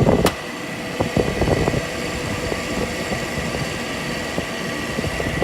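Window air conditioner running under load, its compressor and fan going steadily with a high whine, with loud fan motor bearings that are worn. There is a sharp click just after the start.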